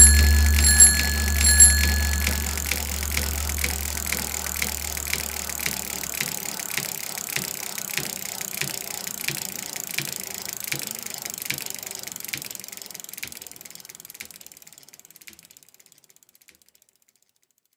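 A bicycle bell rings a few times in quick succession over the low note of a music sting, which dies away. A bicycle freewheel then ticks steadily as the wheel coasts, fading out gradually.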